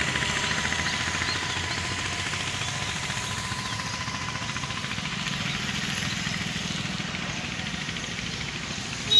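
Steady outdoor background noise with faint distant voices. A thin steady tone runs through the first half and fades out about halfway.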